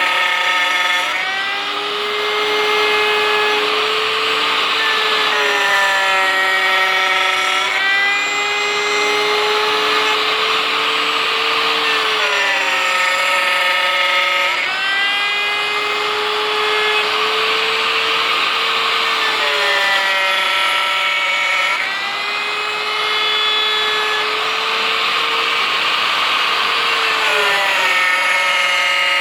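CNC finger-joint cutting machine's router spindle milling wood, a steady cutting hiss with a motor whine that shifts in pitch every few seconds as the cutter works through the passes.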